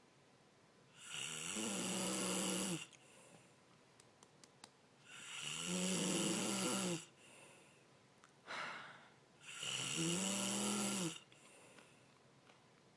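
A person snoring loudly: three long snores about four seconds apart, each lasting about two seconds, with a buzzing pitch that rises and then falls. A softer breath comes just before the third snore.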